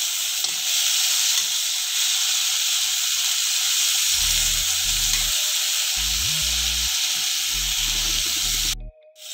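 Prawns sizzling in hot coconut oil in a kadai, a steady frying hiss, while a steel spatula turns and stirs them. The sound cuts out suddenly for a moment near the end.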